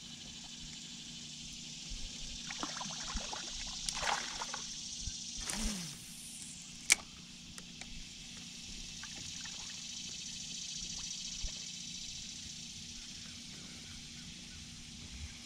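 Faint water trickling and lapping, with a steady high hiss and scattered light clicks and rattles while a fish is played and brought to the boat. One sharp click stands out about halfway through.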